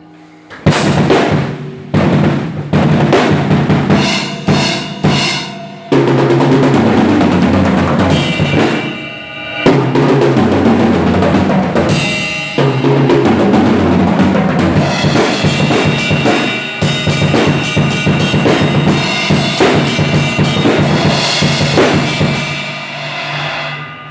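Drums being played hard: a few separate hits over the first six seconds, then continuous fast drumming that fades away near the end.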